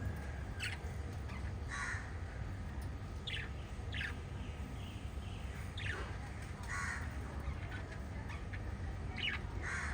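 Pet budgerigars chirping: about eight short, sharp calls spread through the few seconds, several falling in pitch, over a steady low hum.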